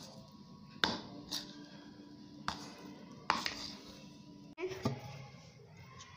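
Metal spoon stirring a stiff flour-and-water play dough mix in a bowl, scraping and striking the bowl with a few sharp clinks about a second apart.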